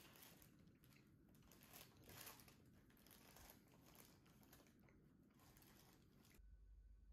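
Faint crackling and crinkling of a crusty bread roll being picked up and handled in the fingers, with many small crackles close together; it stops abruptly near the end, leaving a faint low hum.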